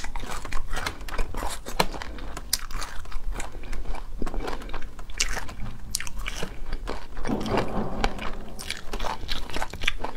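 Close-miked chewing of braised chicken feet: a steady run of small irregular crunches and mouth clicks.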